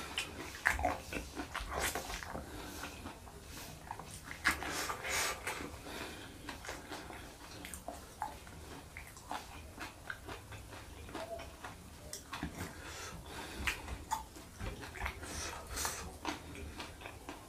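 Close-up eating sounds: a person chewing a rice meal with his mouth open, with irregular wet smacks and clicks from the lips and mouth.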